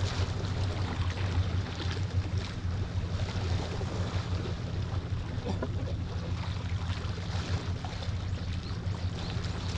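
Seaside ambience: a steady low rumble with a hiss of wind and water.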